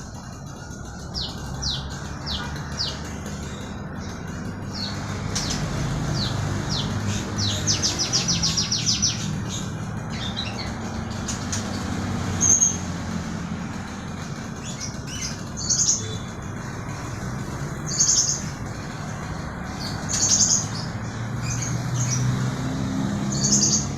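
Mongolian lark singing: strings of sharp high chirps, a fast rattling run of notes, then loud short phrases every two or three seconds, over a steady low hum.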